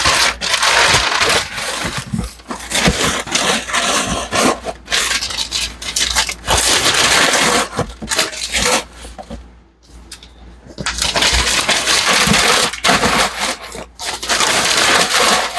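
Paper being crumpled and stuffed into a shipping box as packing, in repeated bursts of crackling, with a short lull about ten seconds in.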